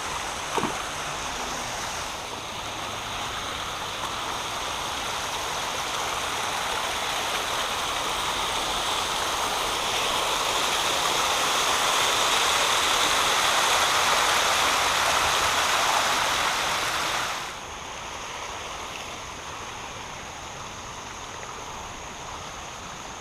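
Creek water rushing over a small spillway fall: a steady rush that swells gradually, then drops abruptly to a softer rush about three-quarters of the way through.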